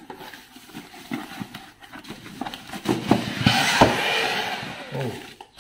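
Packaging being handled: scattered knocks and scrapes of cardboard against the wooden table, then a loud rustling crinkle of plastic wrapping, lasting about a second and a half, as the wrapped vacuum body is lifted out of its box.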